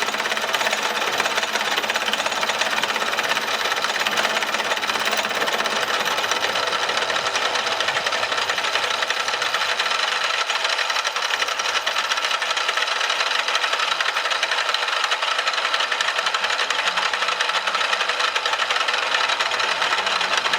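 A power tool running steadily with a fast, even chatter, as in machining or grinding metal.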